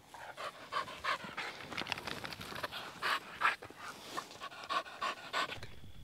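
A bird dog panting hard and fast, several quick breaths a second, stopping about five and a half seconds in.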